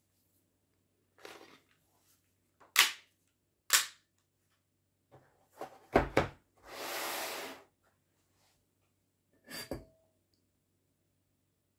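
Handling noises from an airsoft gas pistol: two loud, sharp mechanical clicks about a second apart from working its action, then a knock as it is set down into the moulded pulp tray, a short rustle, and a couple more clicks near the end.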